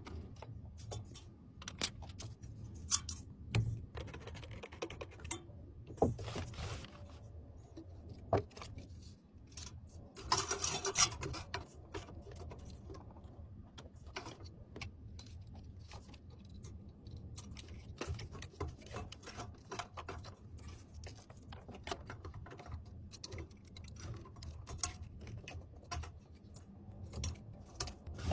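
Scattered small clicks, taps and rubbing of computer parts being handled and fitted during a PC build, with a longer scraping rub about ten seconds in.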